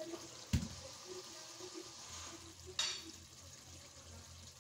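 Faint sizzling of a beef and cauliflower curry cooking in a steel pot, with a single knock about half a second in and a short hiss near the three-second mark.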